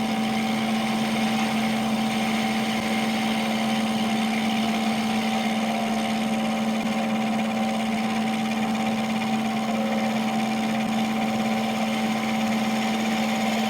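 Milling machine running steadily, its spindle and drive giving a constant hum with a low steady tone, as the cutter takes a slow traverse pass across a bolt-head flat.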